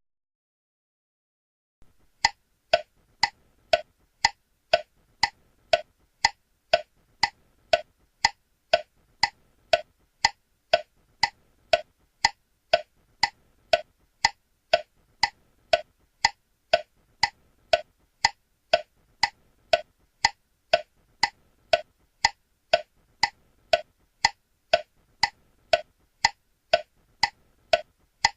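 Steady clock-like tick-tock, about two ticks a second with stronger and weaker ticks alternating, starting about two seconds in.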